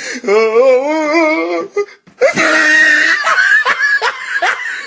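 Wavering, whining vocal cries: one long wobbling cry, then after a short break a higher cry broken by quick sharp yelps.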